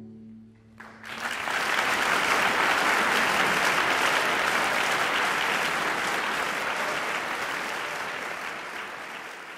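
The last cello note rings out and dies away, then audience applause breaks in about a second in. The applause holds steady and fades near the end.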